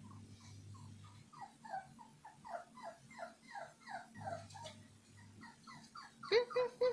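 A puppy whimpering and whining in a quick run of short, falling cries, about three a second, louder in the middle; near the end it breaks into a run of louder, steadier yips at about four a second.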